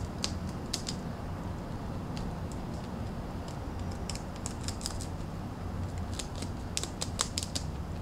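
Rabbit gnawing the dried willow twigs of its tent: clusters of sharp, crunching bites near the start, again about halfway through and toward the end, with a lull in between.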